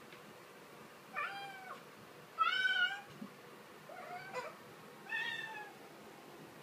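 Kitten meowing four times, about one call a second, the second meow the loudest.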